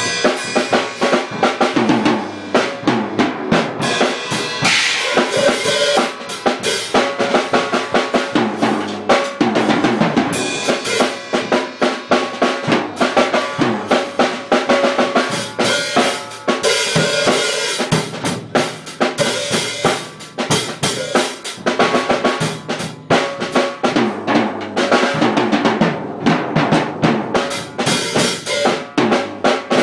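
Acoustic drum kit played continuously: a dense, unbroken run of drum hits with cymbals ringing over them.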